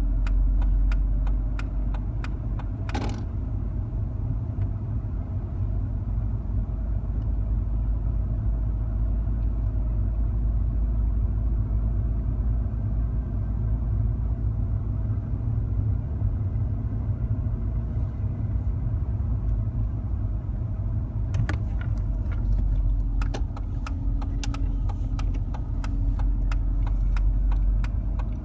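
Mercedes-Benz car heard from inside the cabin, driving slowly on a snow-covered road: a steady low rumble of engine and tyres, with scattered sharp clicks and crackles at the start and through the last several seconds, and one louder crack about three seconds in.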